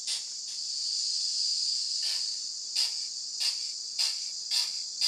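A DCC sound decoder in a Minitrain Decauville H0e model steam locomotive plays steam-engine sound through its tiny speaker: a continuous high steam hiss. The chuffs pause briefly, then resume about two seconds in at a little under two a second.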